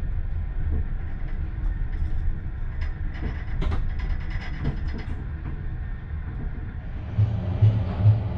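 Railway sleeping car running over the track, heard from inside: a steady low rumble of wheels and rails. About halfway through come brief high squeals and clicks as the wheels take the curve onto another line. Near the end the running noise grows louder, with a regular pulsing beat.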